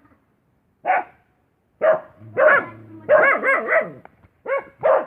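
A dog barking in short, pitched barks: single barks at first, then a quick run of four or so, then two more near the end.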